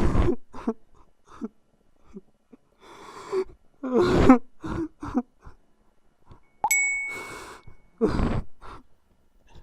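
A person breathing hard in ragged bursts, with groans and sighs between them. About two-thirds of the way in, a single bright ding rings out and fades over a little more than a second.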